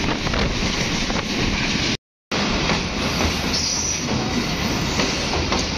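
Passenger train running, heard from an open coach doorway: steady rumble and rush of wheels on the rails with wind, and light clicks over the rail joints. The sound cuts out completely for a moment about two seconds in.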